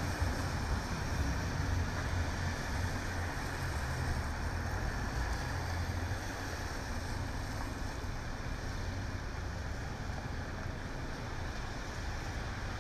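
Traffic on a wet city street in the rain: a steady hiss of rain and tyres on wet pavement, with a low rumble of passing cars that eases off about halfway through.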